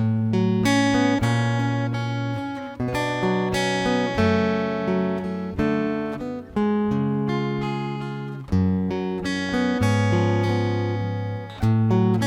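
Acoustic guitar strumming sustained chords that change every second or two, with a deep bass note under each. This is an instrumental passage with no singing.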